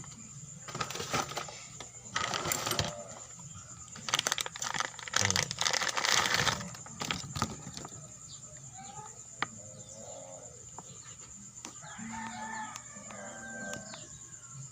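Novatec quick-release bicycle hub's freehub clicking in several bursts as the hub is spun, the loudest burst about four to seven seconds in. A rooster crows near the end.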